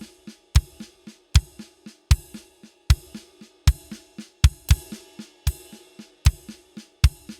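Drum kit playing a sixteenth-note groove in groups of three: a cymbal-and-kick accent followed by two softer ghost notes, over and over, so the accents fall about every three quarters of a second and cut across the 4/4 bar.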